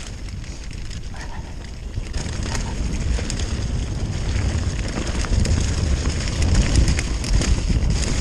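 Wind buffeting the microphone over the crunch and rattle of a mountain bike rolling over a rough trail, with many small crackling ticks. It gets louder from about two seconds in.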